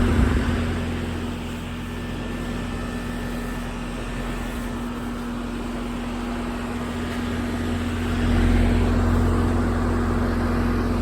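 Goodman GSX14 air-conditioner condenser running in cooling mode: the Copeland scroll compressor hums with a steady tone under the rushing air of the condenser fan. The sound drops a little about a second in and grows louder again about eight seconds in.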